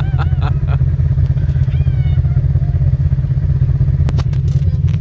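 Side-by-side UTV engine running at low revs, a steady low drone, with a few sharp clicks or rattles about four seconds in.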